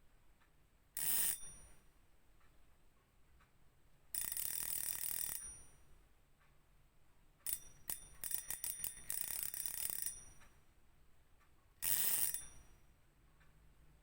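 Fishing reel drag buzzing in bursts as line is pulled off the spool: a short burst, a longer steady one, a run of separate clicks that speeds into a buzz, then another short burst.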